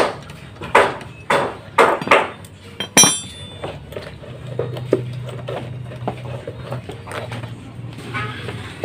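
Sharp metal clanks from a socket wrench undoing the ground bolt under a Honda Vario 125 scooter's floor deck, with one ringing metallic clink about three seconds in. After that come fainter knocks and handling sounds over a low hum.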